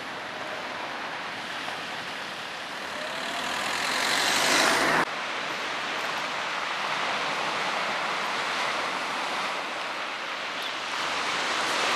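A car drives up and past, growing louder with a faintly rising pitch until it cuts off suddenly about five seconds in. A steady wash of surf breaking on a rocky shore follows.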